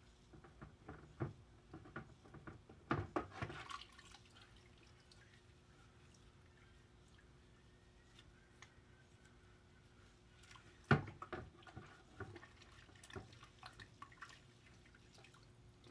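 Diluted degreaser solution splashing and dripping in a plastic bucket as gloved hands work a connecting rod and piston through it. Two short spells of splashing, over the first few seconds and again from about 11 seconds in, the loudest splash at the start of the second.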